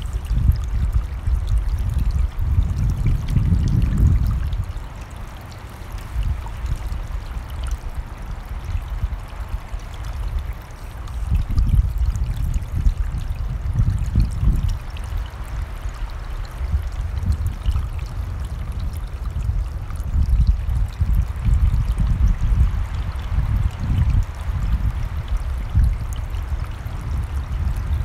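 A running mountain stream rushing steadily, with irregular gusts of wind rumbling low on the microphone, heaviest in the first few seconds.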